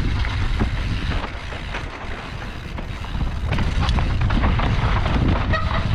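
Mountain bike riding down a rough trail: wind rushing over the microphone with a low rumble from the tyres and frequent small clatters and knocks from the bike.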